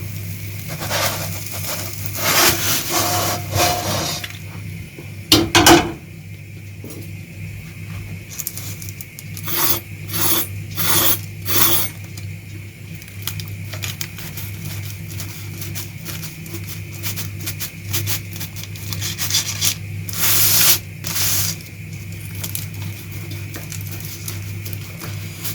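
Kitchen utensil scraping and rubbing against a cooking pan in short, irregular strokes, over a steady low hum.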